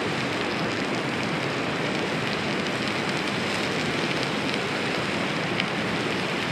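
Steady rain falling, an even hiss at a constant level with a few sharper drops here and there.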